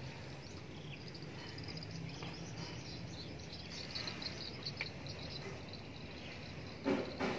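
Quiet background: a low steady hum with faint quick bird chirping about four seconds in. Two knocks close together near the end.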